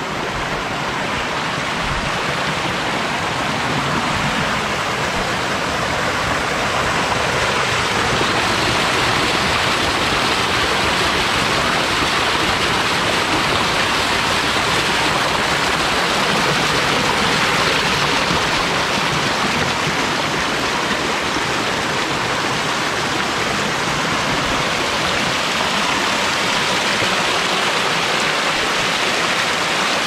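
Mountain valley stream rushing over rocks, a steady rush of water that grows a little louder over the first few seconds.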